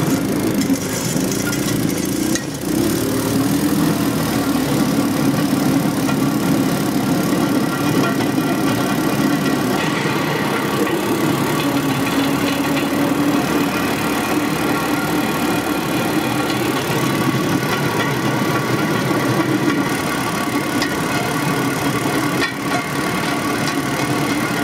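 Engine of a motorized rail draisine running steadily as the cart rolls along the rails.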